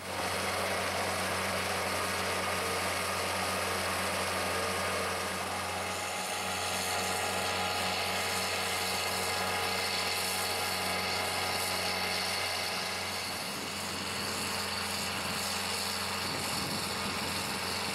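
John Deere skid steer loader's diesel engine running at a steady speed, with the boom trencher mounted on it.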